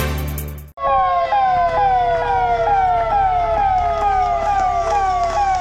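Fire engine sirens start suddenly just under a second in, after music cuts off. One cycles in quick rising sweeps, about two and a half a second, over another's long, slowly falling wail.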